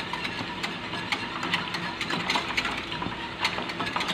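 Wire whisk stirring a thickening béchamel sauce in an enamelled saucepan, its wires clicking quickly and irregularly against the pan.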